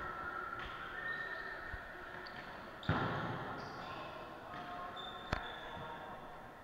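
Dodgeball game in a large, echoing sports hall: background crowd noise with short squeaks of shoes on the court floor. A sudden loud burst of noise comes about three seconds in as play gets going, and a single sharp smack of a ball about two seconds later.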